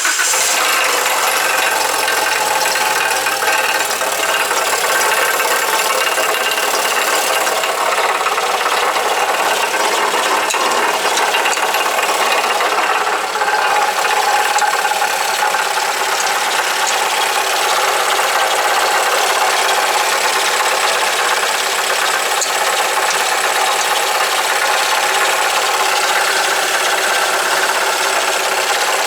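Alfa Romeo GT's 2.0 JTS four-cylinder petrol engine running steadily just after start-up, with a rattling knock, the fault being hunted. The knock's source is unclear; the mechanic comes to think it is inside the engine.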